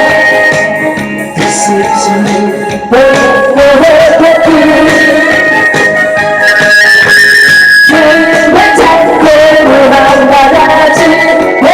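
Loud trot music from a backing track played over a PA, with a wavering melodic lead and singing at times; it thins out briefly about a second in, then comes back in full about three seconds in.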